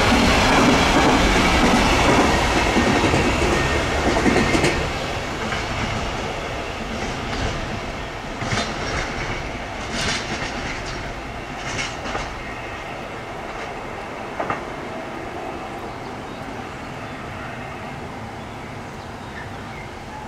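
Container wagons of an intermodal freight train rolling past close by, a heavy rumble of wheels on rails. About five seconds in it drops sharply as the last wagons pass, then fades away with a handful of sharp clacks from the wheels over the rail joints.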